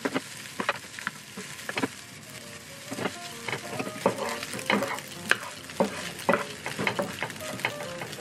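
Egg fried rice sizzling in a nonstick pan while a wooden spatula stirs and scrapes it. There are frequent sharp clicks and knocks of the spatula against the pan.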